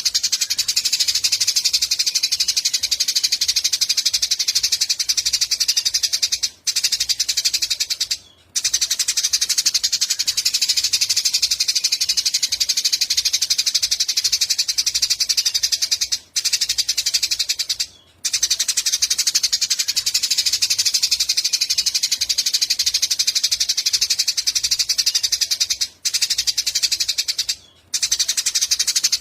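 A small songbird's fast, high, buzzing trill, held in long unbroken runs of several seconds and broken by brief pauses, twice in quick succession roughly every ten seconds.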